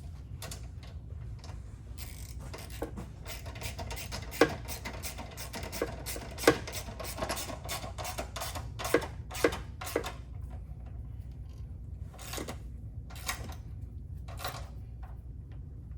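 Hand ratchet wrench clicking in fast runs while the sway bar mounting bolts are tightened, with several sharper metal knocks among them. Near the end the clicking thins out to a few separate clicks.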